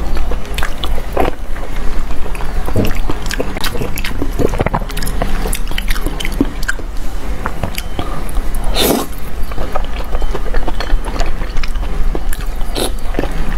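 Close-up mouth sounds of someone biting and chewing soft, fatty braised meat: irregular wet smacks and squishy clicks, with one louder smack about nine seconds in.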